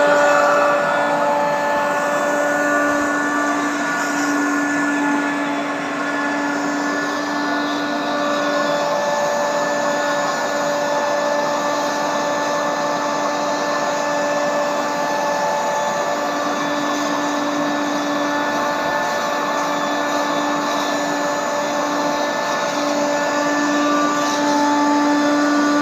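Carpet-cleaning wet vacuum (extractor) running steadily with a whining motor hum and a suction hiss as its hand upholstery tool is drawn over a pile prayer rug. The main note drops out briefly a couple of times.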